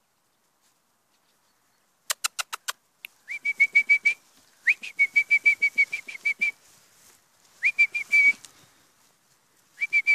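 A person whistling close by: after a quick run of clicks, bursts of short, high notes at one pitch, about five a second, come four times, with more clicks at the very end.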